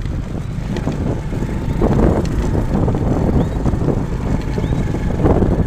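Motor vehicle running on the move, a steady low rumble with wind buffeting the microphone, swelling louder about two seconds in and again near the end.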